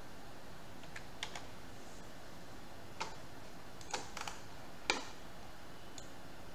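Scattered clicks from computer input: single clicks and small groups of two or three, roughly a second apart, over a faint steady hiss.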